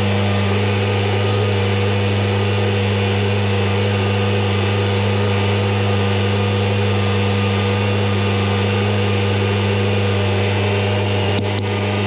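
Kubota MX5400 tractor's four-cylinder diesel engine running steadily at high speed, with a few light knocks near the end.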